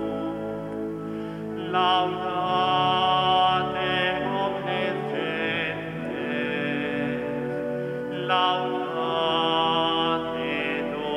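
Church music: a hymn with singing voices and held, slowly changing notes.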